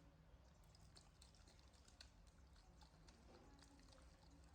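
Near silence: room hum with faint, scattered small clicks.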